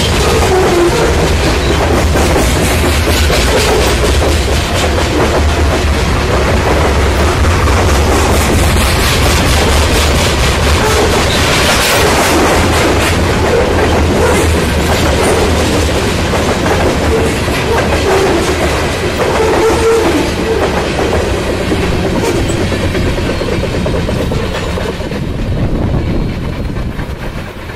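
Covered hopper cars of a long freight train rolling past close by: a steady rumble and clatter of wheels on the rails. It fades over the last couple of seconds as the end of the train passes and draws away.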